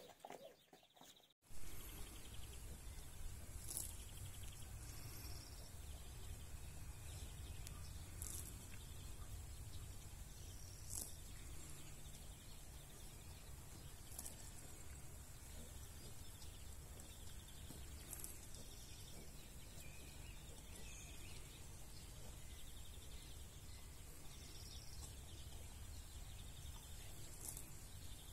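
Outdoor field ambience: a steady low rumble of wind on the microphone, with a short, high-pitched chirp every three or four seconds.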